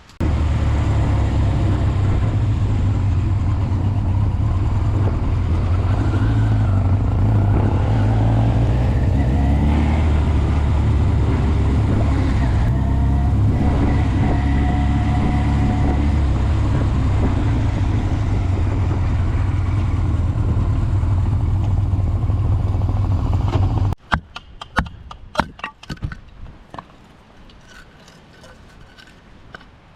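An engine running steadily and loudly close by, with a few rises in pitch. It cuts off abruptly about 24 seconds in, leaving a few faint clicks and knocks.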